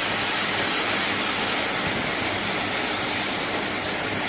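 Plasma torch of a CNC cutting machine cutting, a steady hiss with a faint high tone and a low hum underneath.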